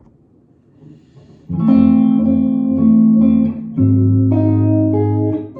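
A guitar tuned down a full step playing sustained jazz chords. After a quiet second and a half, a chord rings out, and a new chord follows a little past halfway, with inner voices moving between them.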